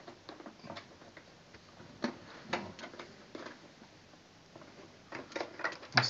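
Light plastic clicks and taps from hands handling the casing and filter cover of a switched-off Bosch BGC05AAA1 bagless vacuum cleaner. A few scattered clicks come first, then a quicker run of them near the end.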